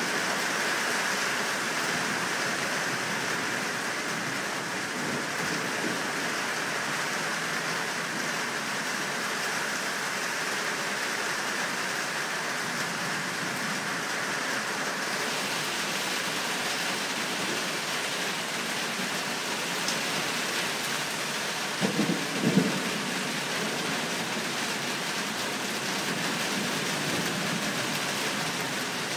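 Thunderstorm: steady rain falling throughout, with a brief crackle of thunder, a few sharp cracks close together, about three-quarters of the way through.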